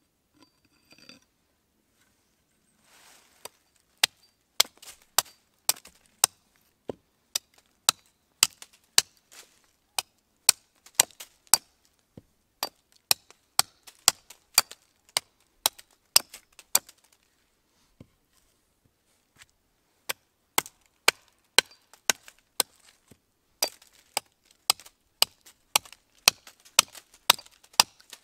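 A small 600 g Urnieta forest axe chopping into a board of wood to shape it, sharp single strikes about two a second. The strikes begin a few seconds in and stop briefly twice before going on.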